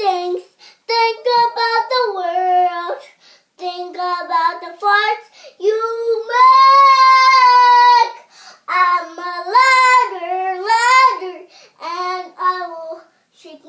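Young girl singing her own made-up chant unaccompanied, in short high-pitched phrases, with one long held note of about two seconds midway.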